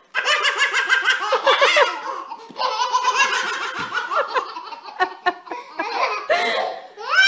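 Babies laughing hard: long runs of high-pitched belly laughs, with a brief pause about two and a half seconds in.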